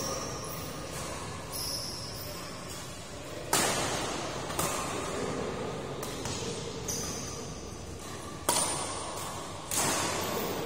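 Badminton rackets striking a shuttlecock during a doubles rally: a run of sharp hits about one to two seconds apart, beginning about three and a half seconds in, each echoing briefly in a large hall.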